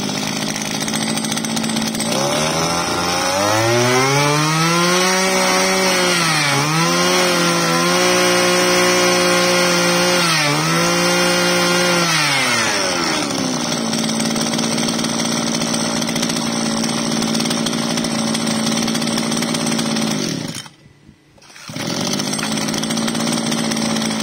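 Mitsubishi TL261 26cc two-stroke brush cutter engine running. It idles, is revved up by hand at the carburetor throttle and held at high speed for about ten seconds with two brief dips, then settles back to a steady idle. The sound drops out for about a second near the end before the idle returns.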